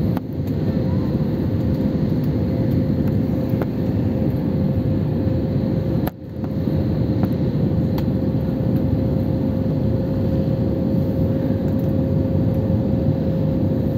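Cabin noise of an Airbus A320-family airliner descending to land, heard at a window seat over the wing: a steady low roar of engines and airflow with a faint steady hum. The sound drops out briefly twice, just after the start and about six seconds in.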